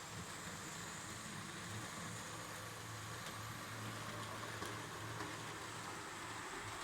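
H0 scale model train running on the layout: a steady hum with a few faint clicks of the wheels on the track.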